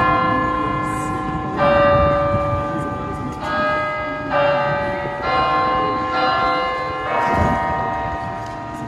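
Sampled York Minster church bells played note by note on an OP-Z synthesizer: a new bell strike roughly every second, each at a different pitch and ringing on under the next.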